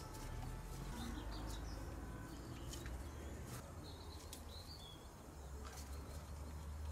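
Quiet background with a low steady rumble and faint bird chirps now and then. A few light clicks come from fuel return pipe connectors being pressed onto the diesel injectors.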